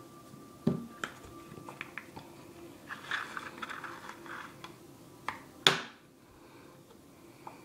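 Handling of a plastic dental floss dispenser: scattered clicks and taps, a rasping stretch about three seconds in as floss is drawn out of it, and a short, louder rasp just before six seconds.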